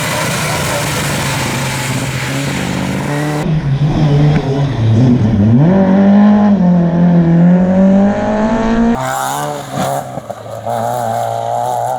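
Rally car engines running hard through several clips cut together. About a third of the way in, the engine note drops sharply and climbs back up, then holds high; another car follows near the end.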